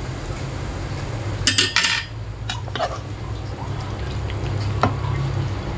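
Metal cooking utensils clinking and knocking against the wok and dishes, with a quick cluster of clatters about one and a half seconds in and a few single taps later. Under them, hot frying oil in the wok sizzles faintly over a steady low hum.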